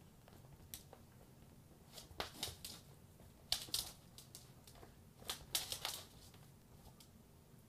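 Small dog playing with a rubber ball toy on a wooden floor: three bursts of rapid clicking and clattering as the toy and its claws knock on the floor.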